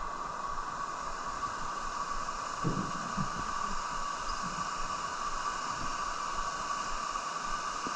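Steady rush of water pouring over a low creek dam, an even hiss that does not change.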